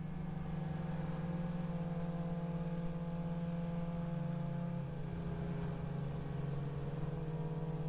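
Suzuki GSX-R sportbike engine running at a steady low cruising speed in city traffic. The pitch eases off slightly about five seconds in and begins to rise near the end as the throttle is opened.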